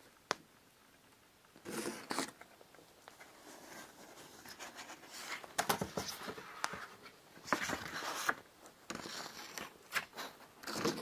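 Rustling, shuffling handling noises in a small room, coming in several irregular bursts, with one sharp click just after the start.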